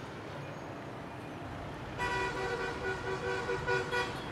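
Street traffic noise, then from about halfway a vehicle horn tooting in a string of short honks.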